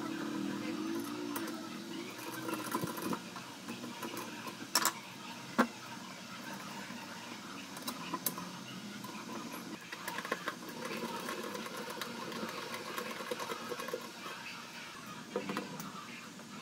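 Small clicks and clinks of metal RC axle parts (steel shaft, bearing housing, aluminium wheel hubs) handled and fitted together by hand, over steady background noise. The two sharpest clicks come about five seconds in.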